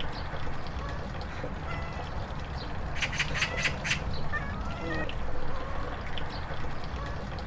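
Oriental magpie giving its harsh chattering call: a quick run of rasping notes about three seconds in, over a steady low background hum with a few faint short chirps.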